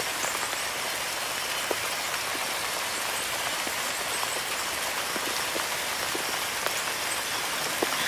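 Rain falling: a steady hiss with scattered faint ticks of drops.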